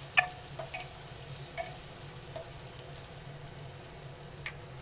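Chopped vegetables sizzling in ghee in a pressure cooker while a silicone spatula stirs them. A few sharp knocks of the spatula against the pot come in the first couple of seconds, the loudest right at the start, and one more comes near the end.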